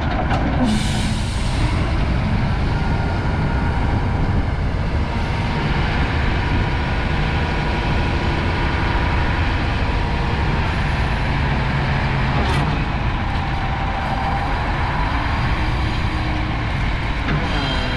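Caterpillar 966F wheel loader's diesel engine running steadily under load while the loader drives and raises its bucket, with a short hiss about a second in.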